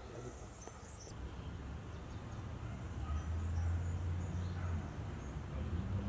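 Outdoor ambience: a low, uneven rumble that swells in the middle, with a few faint high chirps in the first second.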